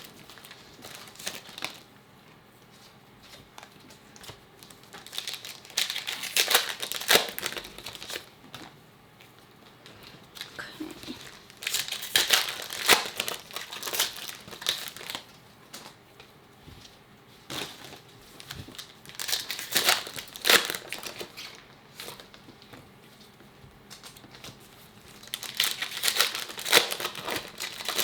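Foil trading-card pack wrappers crinkling and tearing as packs are torn open and handled, in about five separate bouts of a few seconds each with quieter gaps between.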